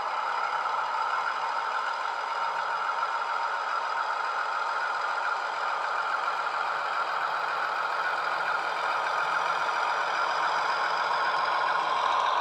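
Class 35 Hymek diesel engine sound played by a model locomotive's DCC sound decoder through its small onboard speaker, running steadily as the loco moves. It is thin, with almost no deep bass, and grows a little louder near the end.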